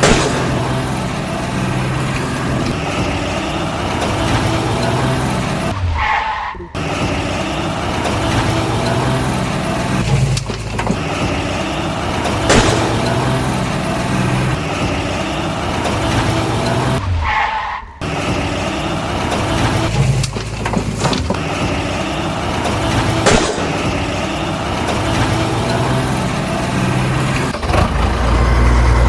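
A heavy vehicle engine running steadily. The sound nearly drops out briefly twice, and its pattern repeats about every eleven seconds.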